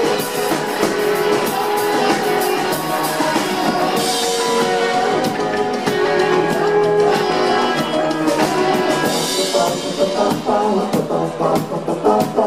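Live rock band playing: drum kit with cymbal hits, electric guitar and keyboard, with singing. The cymbal hits come thicker near the end.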